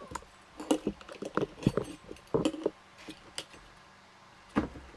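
Handling noise as an amplifier circuit board and speaker wires are picked up, moved and set down on a cutting mat. A cluster of clicks, clinks and knocks fills the first three seconds, with a louder knock near the end.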